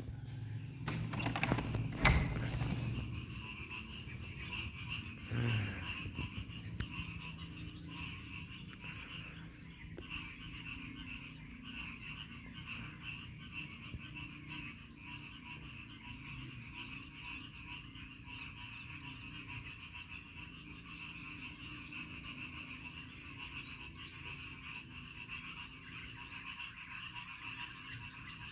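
Morning nature ambience: a steady, pulsing chorus of calling frogs. There is a louder bump about two seconds in, and another brief sound about five seconds in.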